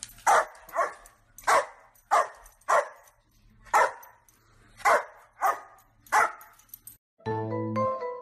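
A dog barking repeatedly, about nine short barks over six seconds. Light mallet-percussion music starts about seven seconds in.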